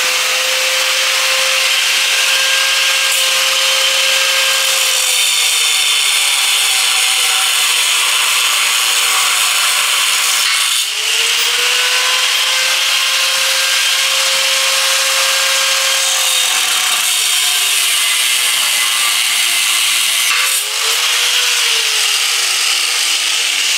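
Angle grinder with a cutting disc cutting through rusted exhaust header bolts on a car's underside. The motor's pitch sags as the disc bites into the steel and recovers between cuts, with brief breaks about eleven seconds in and again near the end.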